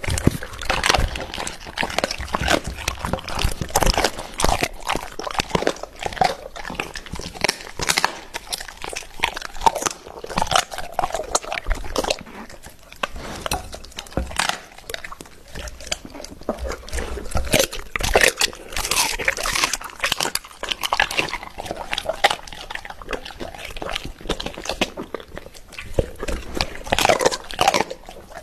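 Large dog chewing raw chicken pieces: irregular crunching and biting sounds, quieter for a few seconds in the middle.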